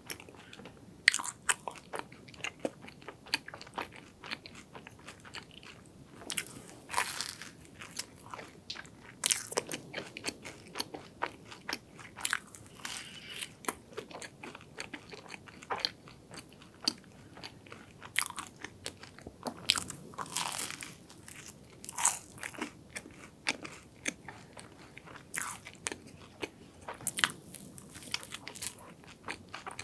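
Close-miked biting and chewing of a cream-topped croffle (croissant-dough waffle): irregular crisp crackles of the flaky crust, with softer chewing between bites.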